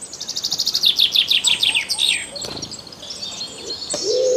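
Songbirds singing: a fast trill of rapidly repeated high, falling notes for about two seconds, then softer high chattering, with a low cooing note coming in near the end.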